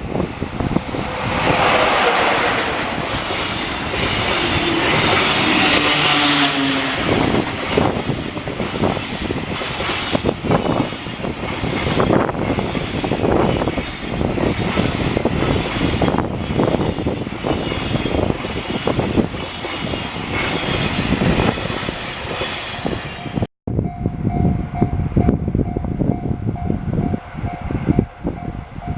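A long train passes a level crossing on the Tokaido main line. A falling-pitched tone comes early as the train passes, then wheels clack over the rail joints in a long regular run. After a sudden cut about 24 seconds in, a level-crossing warning bell rings steadily.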